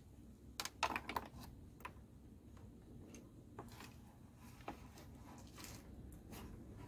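Light clicks and rattles, a quick cluster about a second in and then a few single ones: test wires and crocodile clips being handled and clipped onto a car radiator fan's connector wires.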